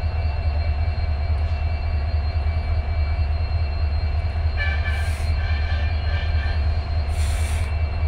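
Train running on Indian Railways track: a steady heavy low rumble with a thin high whine over it. A squeal of wheels rises midway, and two short hisses come about five and seven seconds in.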